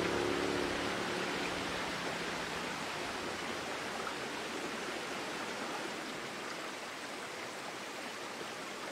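Mountain stream rushing steadily. A machine's engine drone, heard underneath at first, fades out within the first two seconds.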